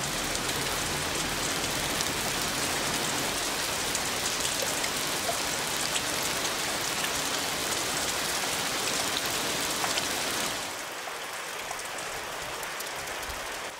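Heavy rain pouring down onto rocks and hard ground, a dense steady hiss; about ten seconds in it drops to a quieter, thinner rain sound.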